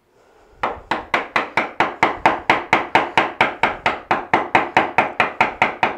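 Wooden mallet striking a bench chisel in a fast, steady run of blows, about four or five a second, starting a little over half a second in. The chisel is chopping out the waste of a half-blind lap joint in poplar.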